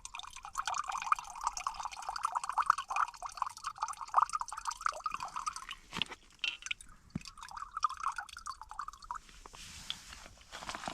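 Water trickling and dripping from a purifier filter into a container. It stops about six seconds in, with a few small knocks, then runs again briefly before stopping.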